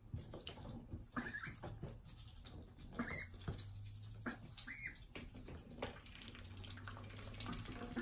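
Young ducks giving a few short high calls while pecking and scuffling in wood shavings, with small scattered clicks.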